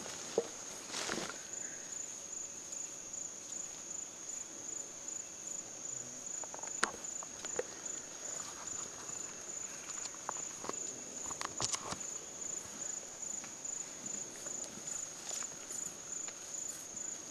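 A steady, high insect call pulsing about twice a second, with scattered crackles and rustles of chimpanzees moving over dry leaf litter, a few sharp snaps among them.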